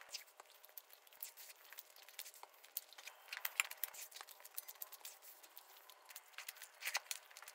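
Faint, scattered crinkling and clicking close to the microphone: food and its wrapping being handled.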